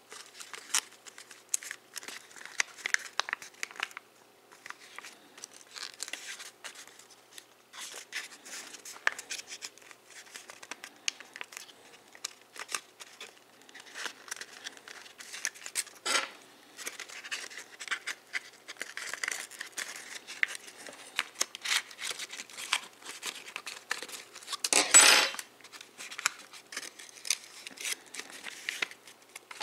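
Foil origami paper crinkling and crackling as it is pinched and shaped by hand, in many small irregular clicks and rustles, with one louder, longer crinkle about 25 seconds in.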